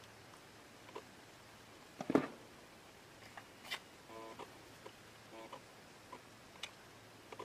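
Faint handling noises in a small room: scattered light clicks and taps, with a louder knock and short rustle about two seconds in, as a fishing reel and a small plastic parts box are handled over a wooden table. Two brief faint chirps follow, around four and five and a half seconds in.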